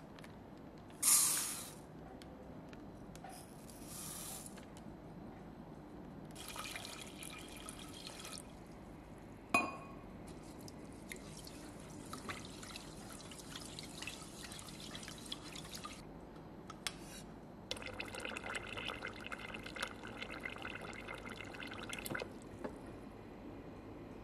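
Raw rice being washed by hand in a pot of water: water swishing and splashing in several short bursts, with one sharp knock about ten seconds in. Near the end, water runs steadily into the pot for about four seconds as it is filled for cooking.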